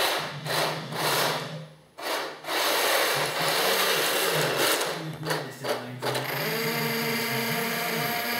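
Heng Long 1/16 RC tank's electric drive motors and gearboxes whirring in short bursts. From about two and a half seconds in they run almost continuously, with a steadier, more even whine over the last two seconds, above a low pulsing hum.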